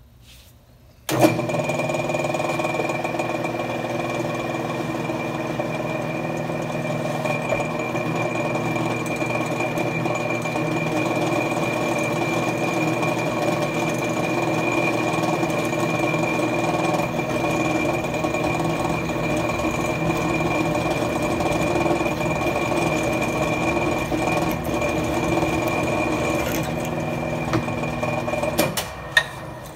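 A Millrite vertical mill's motor and belt-driven spindle is switched on about a second in and runs steadily at 435 rpm, with a constant high whine, while a twist drill is plunged without pecking through quarter-inch hot-rolled mild steel. The mill is switched off shortly before the end.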